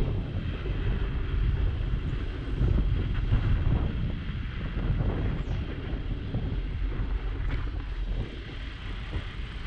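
Wind buffeting a bike-mounted GoPro's microphone as the bicycle rolls along, with a steady rumble of tyres on a packed-snow street.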